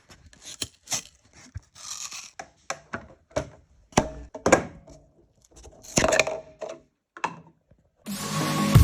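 Irregular knocks, clicks and short scrapes of hard objects being handled and set down, with music starting near the end.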